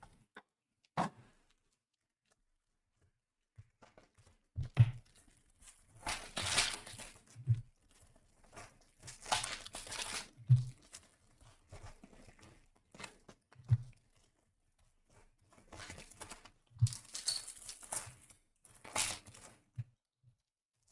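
Sealed Optic football card blaster boxes and packs being opened: wrappers torn open and crinkled in several bursts, with soft thumps on the table between them.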